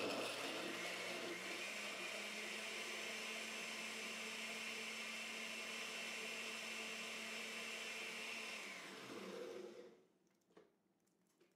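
Countertop glass-jar blender running steadily, pureeing chili peppers into a watery garlic mix, then spinning down about nine seconds in. A few faint clicks follow.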